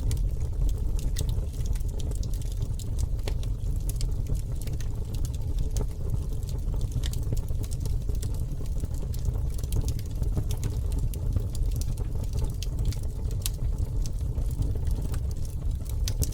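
Campfire burning: scattered sharp crackles and pops over a steady low rumble.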